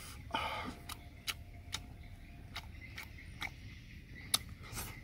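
A man chewing a mouthful of grilled fish, with irregular wet lip-smacking clicks every half second to a second. A short noisy burst comes about half a second in.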